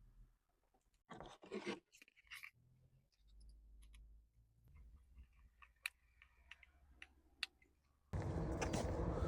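Faint clicks and short bits of handling noise from small tools and parts during a phone screen replacement. About eight seconds in, a much louder, steady rushing noise starts abruptly.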